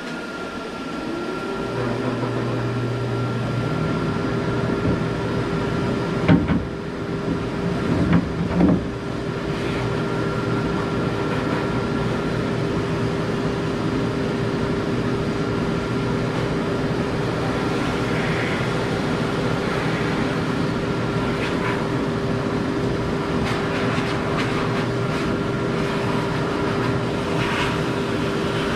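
Pet grooming dryer blowing air through its hose: the motor spins up about a second in, then runs steadily with a constant whine over rushing air. A few knocks come about six to nine seconds in.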